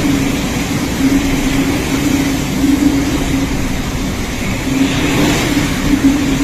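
Violent storm wind and driving rain, a loud steady rush with a low drone that swells and fades every second or so.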